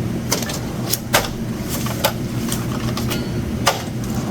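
A handful of sharp clicks and knocks from things handled at a checkout counter, over a steady low hum.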